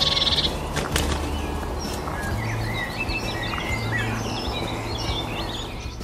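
Small songbirds chirping and calling, many short high notes and slurs, with a fast high trill at the start and a sharp click about a second in, over a steady low hum.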